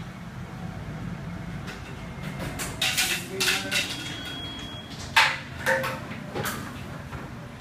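Clanks and knocks of metal tools and equipment being handled in a car service bay, several in a cluster from about three seconds in, the sharpest about five seconds in, over a steady low hum.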